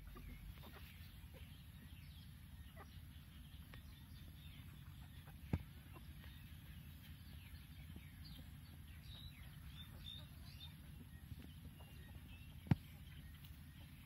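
Foraging chickens giving faint, scattered clucks and high chirps over a steady low rumble. Two sharp clicks, one about five seconds in and one near the end, stand out as the loudest sounds.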